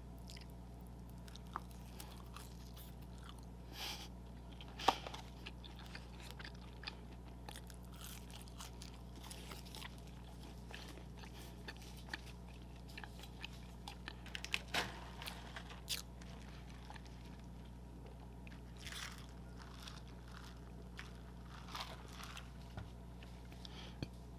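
Close-miked eating of McDonald's food: scattered bites, crunches and chewing over a steady low room hum, with the sharpest sounds about five and fifteen seconds in.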